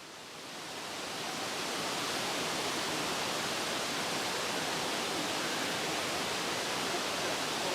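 Steady rushing roar of a waterfall's falling water, fading in over the first two seconds.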